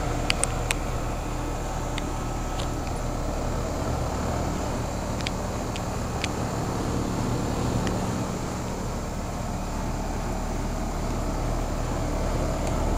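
Carrier central air-conditioner condensing unit running: the compressor's steady hum under the rush of the condenser fan, with a few faint clicks.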